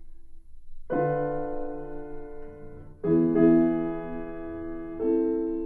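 Slow piano music between passages of narration: three chords struck about two seconds apart, each ringing on and fading.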